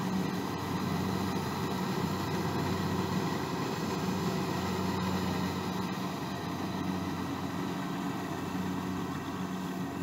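Kubota rice combine harvester's engine running steadily, a constant mechanical drone with a low, even hum.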